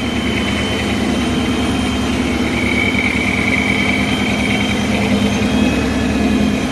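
2013 Mustang GT's 5.0 V8 idling steadily on its first run after an oil pump gear swap.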